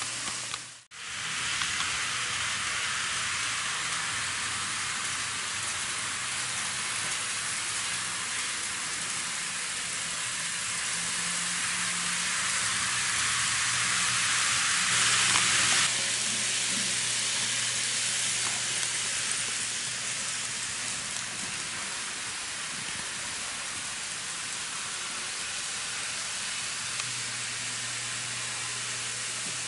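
N gauge model trains running on the layout: a steady hissing whir of wheels on track with a low motor hum. It grows louder for a few seconds and then cuts off suddenly about sixteen seconds in, with a short dropout about a second in.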